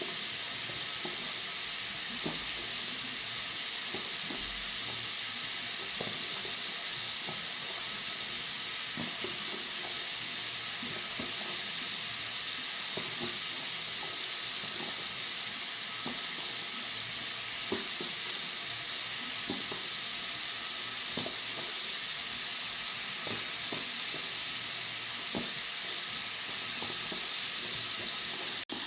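Water running steadily from a bathroom sink tap into the basin: a bright, even hiss with faint droplet splashes underneath. It breaks off briefly near the end.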